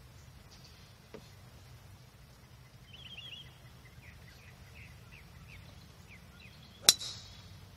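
A golf club striking a ball off the tee near the end: one sharp crack with a brief metallic ring. Birds chirp in short repeated calls in the background.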